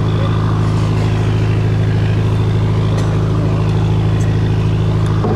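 Steady engine drone aboard a fishing boat: an even low hum that holds one pitch without revving.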